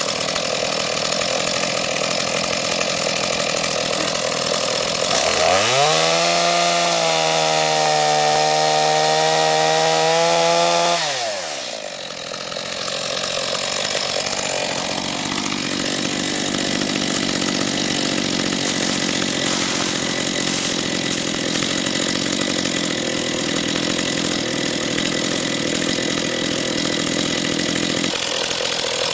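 Skil chainsaw running while cutting a log. About five seconds in it speeds up to a high, steady pitch, drops back around eleven seconds, then runs on steadily through the wood.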